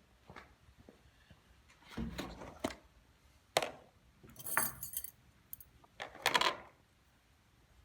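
Cooking gear being handled: a string of about five knocks and clinks of hard objects, one with a bright metallic ring.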